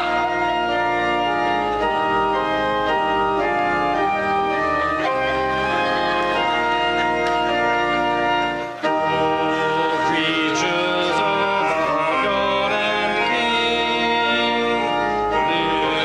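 Organ playing slow music in held, sustained chords, with a brief drop in level about nine seconds in.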